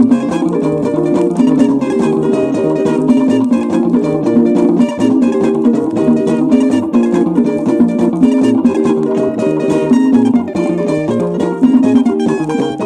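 Nigerian highlife band music from a 1979 vinyl LP, led by plucked guitar lines over a steady dance beat.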